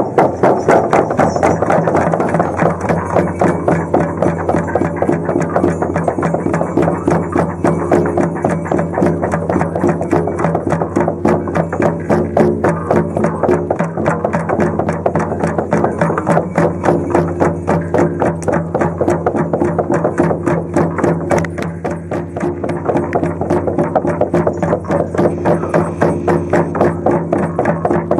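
Many shamanic frame drums (bubens) beaten together in a fast, steady rhythm of about four beats a second, over a steady low drone.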